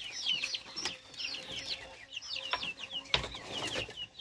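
Young chicks peeping, a steady run of short, high cheeps several a second, with a few knocks among them, the loudest about three seconds in.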